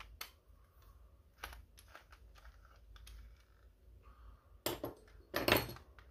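Small clicks and taps of a plastic radio-controller shell and a hex driver being handled, with two louder bursts of clattering clicks near the end.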